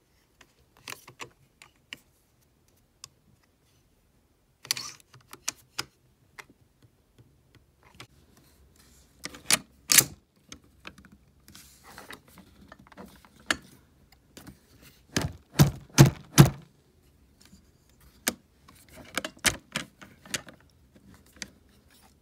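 Scattered metal clicks and clacks of an AK pistol's bolt and bolt carrier being worked by hand with a no-go headspace gauge in the chamber, loudest as three quick clacks about two-thirds of the way through. The bolt does not close on the gauge: the headspace is within spec.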